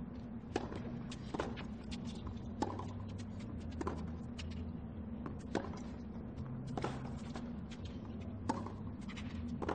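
Tennis ball struck with rackets in a serve and rally: about eight sharp, short hits, one every second or so, over a steady low background hum.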